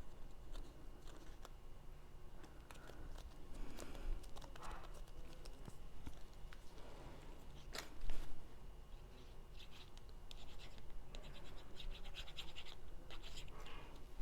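Cardstock pieces being handled and rubbed down by hand: faint scratchy rustling with scattered small clicks, a louder rustle about eight seconds in and a run of quick fine ticks near the end.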